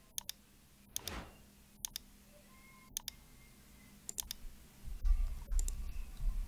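Computer mouse clicks, mostly in quick pairs about once a second, as buttons are clicked in accounting software. Near the end they give way to keyboard typing with low thuds.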